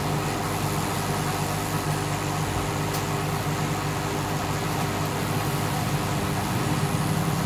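Steady low hum and rumble of a running engine, unchanging throughout, with one faint click about three seconds in.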